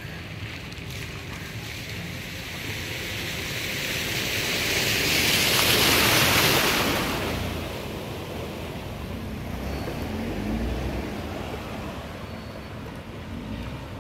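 A steady rush of flowing floodwater with wind noise on the microphone. A hissing swell builds from about three seconds in, is loudest around six seconds, and fades away by eight. A smaller swell follows near the end.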